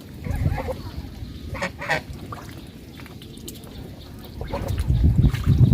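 Domestic goose honking: two short calls in quick succession about two seconds in. Low rumbling noise swells near the end and is louder than the calls.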